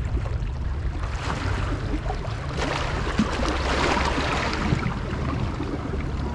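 Waterside ambience: a steady low rumble of wind on the microphone under a rushing wash of water that swells louder through the middle and then eases.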